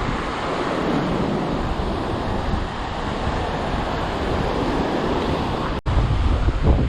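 Ocean surf washing onto the beach, with wind buffeting the microphone. The sound cuts out for an instant about six seconds in, after which the low wind rumble is heavier.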